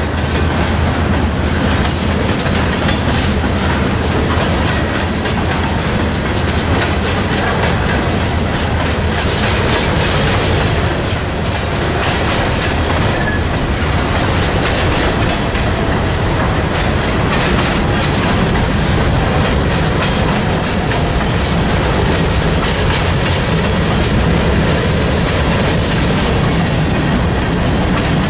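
Freight train cars rolling past at steady speed: a continuous rumble of wheels on rail, with repeated clickety-clack as the trucks pass over the rail joints.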